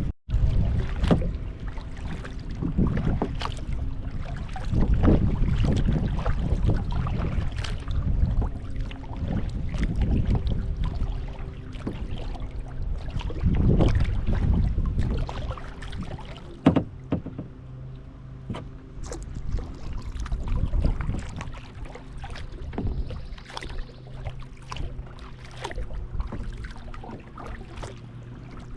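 Kayak being paddled: irregular splashing strokes of the paddle in the water, with scattered sharp knocks, likely the paddle striking the hull.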